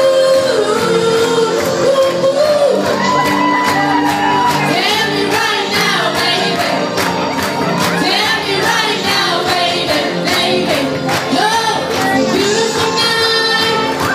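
Live band music: a woman singing into a microphone over electric keyboard and a steady beat, with crowd voices joining in.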